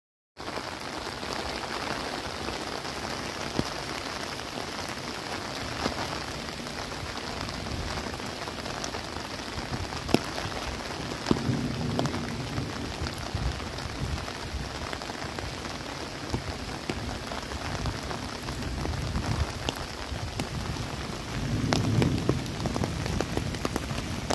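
Rain falling steadily on trees and undergrowth, an even hiss with scattered close drops ticking. Low rumbles of distant thunder swell twice, about twelve seconds in and again near the end.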